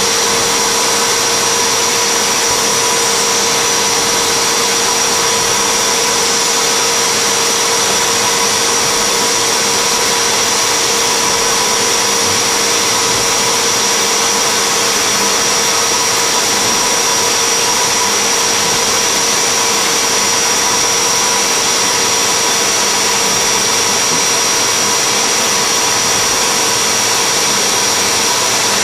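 Steady hiss of a cold-air blower aimed at the cutter, with a steady whine from a milling spindle running at 6000 rpm. An indexable carbide-insert engraving tool is cutting lettering into acrylic.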